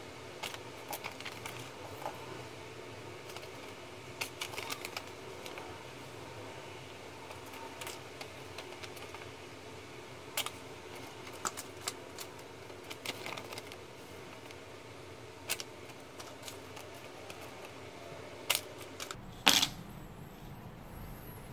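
Loose 9 mm stainless snap-off cutter blade drawn down the edge of an upright sheet of A4 paper, giving faint scattered ticks and light paper scrapes as it cuts. Near the end come a couple of sharper clicks as the blade is set back down on the table.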